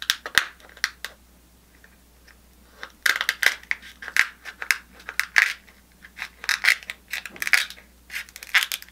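King crab leg shell cracking and crunching as it is cut open: a few sharp clicks, a pause, then a dense run of crackling from about three seconds in.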